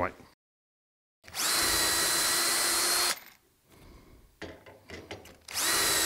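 Cordless drill boring dowel holes into hardwood through the steel guide bushings of a doweling jig. There are two short runs at steady speed, each spinning up quickly with a high whine. A few light clicks sound between them, and the second run starts near the end.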